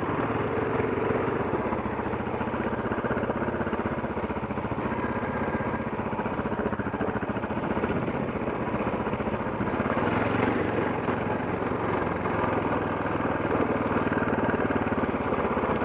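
KTM 640 Adventure's single-cylinder engine running steadily as the motorcycle climbs a rough gravel mountain track.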